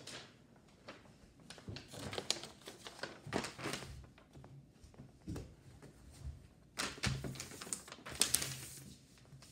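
A large folded sheet of glossy paper being unfolded and smoothed flat on a stone countertop: crinkling and rustling paper in two bouts, around two to four seconds in and again near the end, with a few light knocks.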